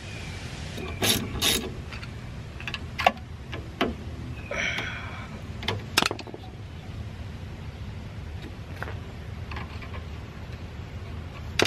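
Hand ratcheting driver with a T45 Torx bit clicking as it unscrews a rear brake caliper guide pin, in scattered metal clicks with a short rasp of ratcheting about four and a half seconds in.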